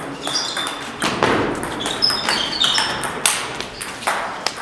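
Celluloid-type table tennis ball struck by paddles and bouncing on the table during a rally: a quick, uneven series of sharp clicks, each with a short high ring.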